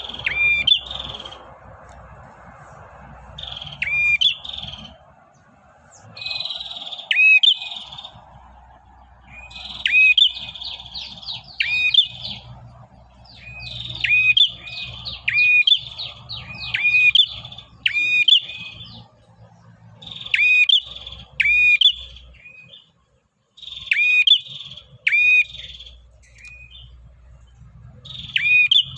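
Prenjak (prinia) singing: sharp, arching whistled notes mixed with a buzzy trill, given in quick bursts again and again. This is a male's call to a female, as used for luring small birds.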